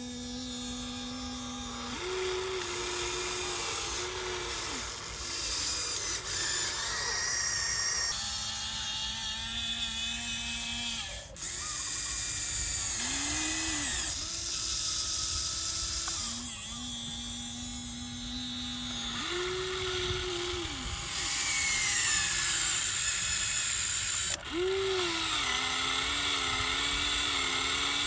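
Small electric motors and gearboxes of a radio-controlled excavator whining. The pitch jumps up and down every few seconds as different motions start and stop, with several abrupt switches.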